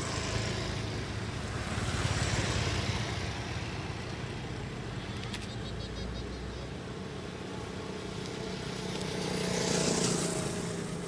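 Motor vehicles passing by, one about two seconds in and another near the end, each sound swelling and then fading away.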